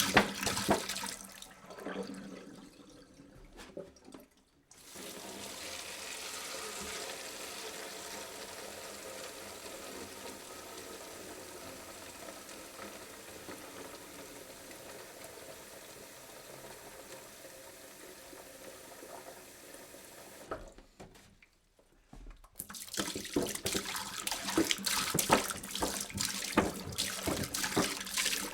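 Liquid poured from a jug, splashing into a container. A splashy pour at the start gives way to a long, even, steady stream. After a brief pause near the end, it starts again as a choppier, splashing pour.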